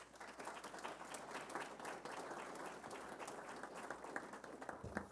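Audience applauding: many hands clapping in a dense patter that dies away near the end.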